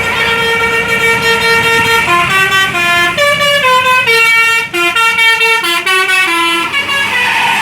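A bus's musical 'telolet basuri' horn playing a tune: one note held for about two seconds, then a quick run of short notes stepping up and down, ending about seven seconds in.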